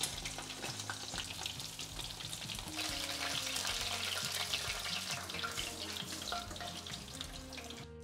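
Breaded chicken thighs frying in hot oil: a steady crackling sizzle that cuts off suddenly near the end.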